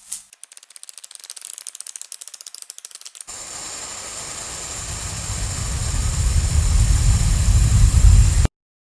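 A sound effect of fast ratcheting clicks for about three seconds, then a rumbling noise that swells steadily louder and cuts off suddenly near the end.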